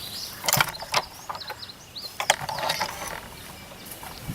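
Spinning fishing reel being handled and cranked, its gears and pawl clicking and ratcheting in a few sharp clicks, then a spell of rattling.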